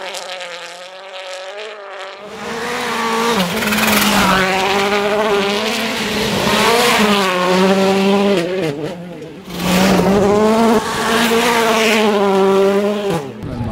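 Rally car engines revving hard, the pitch climbing and dropping again and again through gear changes as the cars drive at full speed. The sound drops out briefly a little past halfway, then the revving resumes.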